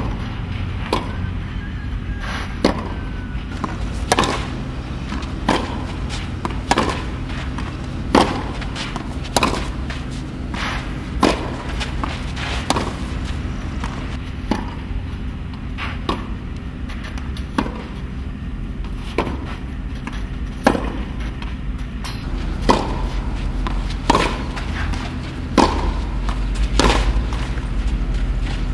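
Tennis balls struck back and forth with rackets on a clay court: a sharp pock about every second or so, with some softer ball bounces between. A steady low hum sits underneath.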